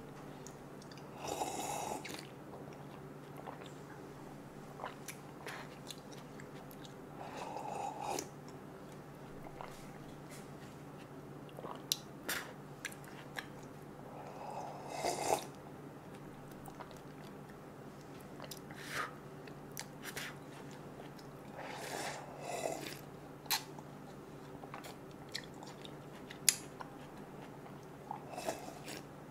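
Close-miked mouth sounds of someone drinking homemade watermelon juice, seeds and pulp included, from a hollowed-out watermelon shell. Soft sips and swallows come every few seconds, with sharp mouth clicks in between.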